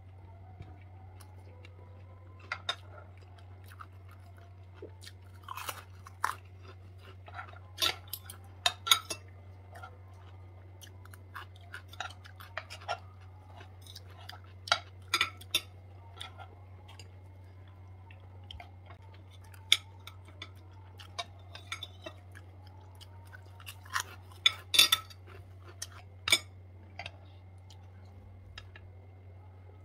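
Metal forks and spoons clinking and scraping against a frying pan as fried rice is scooped out, with chewing in between. The clinks are sharp and scattered, with a steady low hum underneath.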